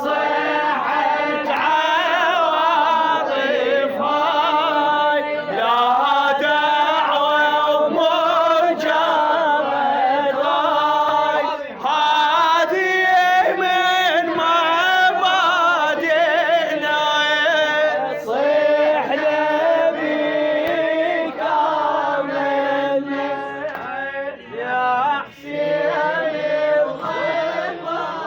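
Male voices chanting an Arabic Shia devotional poem to Imam Hussein (a nasheed), in a continuous melody with wavering, ornamented notes.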